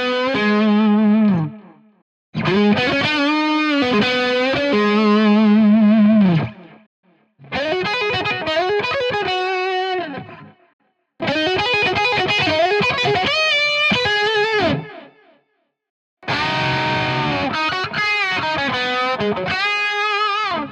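Distorted electric guitar played through a Mooer Yellow Comp optical compressor pedal: five short phrases of sustained, bent and vibrato notes, each followed by a brief silence.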